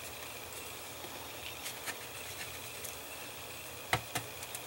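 Light clicks and taps of fingers handling a plastic model kit part, with two sharper clicks close together near the end, over a steady faint hiss and hum.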